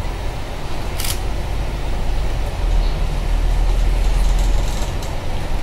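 Steady low engine and road rumble heard from inside a moving bus. The rumble grows louder from about halfway through, and there is one short sharp click about a second in.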